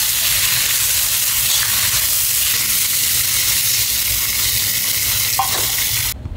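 Cut green vegetables sizzling as they are stir-fried in a hot wok over a gas burner, a steady loud hiss that cuts off suddenly near the end.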